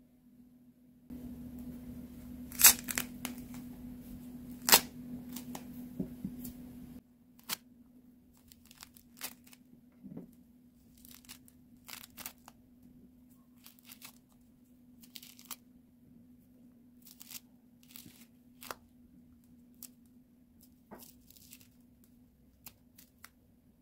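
Hallabong citrus being peeled by hand: short tearing and snapping sounds as the thick rind pulls away from the fruit. Two sharp snaps come in the first few seconds, then smaller tears at uneven intervals.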